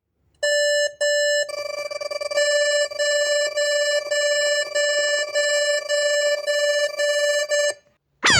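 Electronic warning signal: two short beeps, then a steady multi-pitch tone with a beep pulsing over it about twice a second, which stops shortly before the end.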